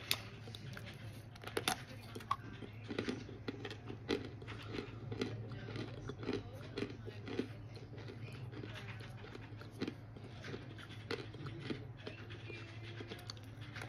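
Someone biting and chewing crunchy chunks of oven-baked cornstarch. A few sharp crunching bites come near the start, then steady rhythmic crunchy chewing follows, over a low steady hum.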